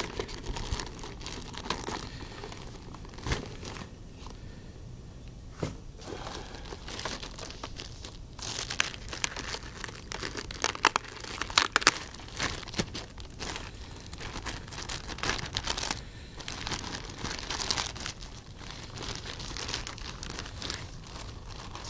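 Cellophane wrapping crinkling and tearing as it is handled and pulled off a portable radio, a run of irregular sharp crackles that is busiest around the middle.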